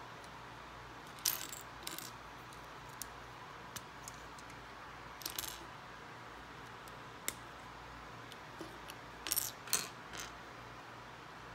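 Small plastic Lego pieces clicking and clattering as they are picked up from a wooden tabletop and fitted together: scattered sharp clicks, with a quick cluster of them near the end.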